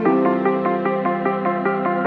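Background music: a quick, even run of notes over a held low chord.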